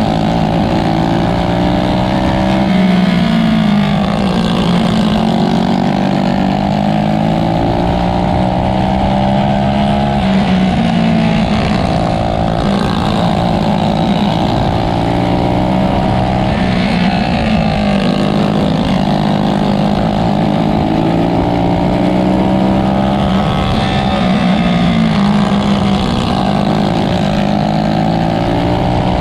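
Winged outlaw dirt kart's engine heard from onboard at racing speed. Its pitch dips and climbs back every six to eight seconds as the kart is driven round the oval lap after lap.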